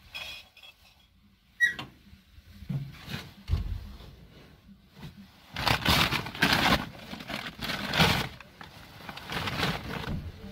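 Bags being rummaged through and handled by gloved hands: rustling of plastic and fabric bags in several bursts, loudest in the second half, with a sharp click about one and a half seconds in.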